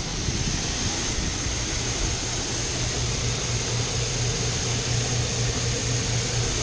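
Two grain augers running steadily and carrying corn from the wagon, driven through a Ford transmission by an electric-motor PTO cart. A throbbing low hum runs under an even hiss of moving grain, with a thin high whine on top.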